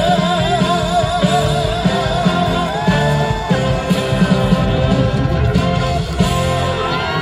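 Instrumental ending of a trot song: band accompaniment with a steady beat and gliding lead melody lines. The singer's last held note fades in the opening moment, and the music stops at the very end.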